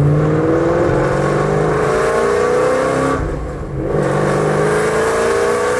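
Cammed Ford Shelby GT500's supercharged V8 accelerating, heard from inside the cabin. The engine note climbs in pitch, drops back briefly about three seconds in at an upshift, then climbs again.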